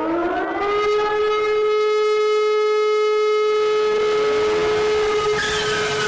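Emergency-alert alarm siren of the civil-defense kind winding up to a steady high tone with many overtones and holding it. A second siren tone rises to join it about four seconds in, and a harsher, noisier sound cuts in near the end.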